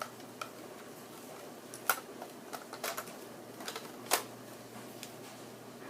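Scattered light clicks and knocks from the airsoft gun's hard plastic parts being handled, about eight in all and unevenly spaced, the loudest about four seconds in.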